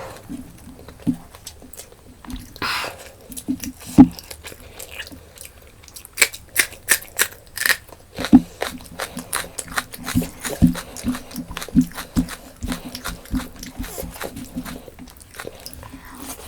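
Close-miked eating: wet chewing and crunching of fried chicken and rice, with many short crisp bites and smacks, thickest from about six seconds in.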